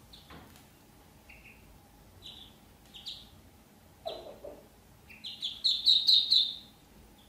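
Ducklings peeping: a few single high peeps, then a rapid run of louder peeps about five seconds in. A brief lower-pitched call sounds about four seconds in.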